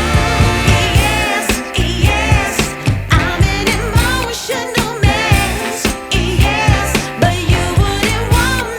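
Background music with a steady beat and a singing voice with wavering melodic lines.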